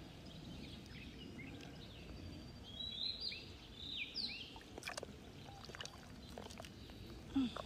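Birds chirping over faint outdoor noise: short, falling chirps come in clusters about three and four seconds in. A few soft knocks come from hands digging in wet mud.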